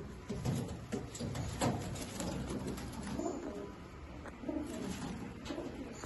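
Fantail pigeons cooing in a cage: a run of low, repeated coos from a displaying bird, with a few light clicks among them.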